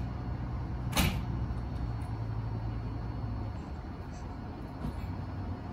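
Hakone Tozan Railway 2000-series electric train standing at the platform, its equipment giving a steady low hum that cuts out about three and a half seconds in. A sudden short hiss about a second in is the loudest moment.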